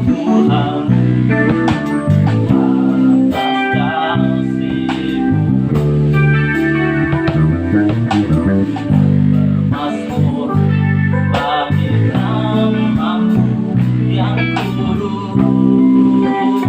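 A band playing: guitar over bass guitar, with keyboard and drums.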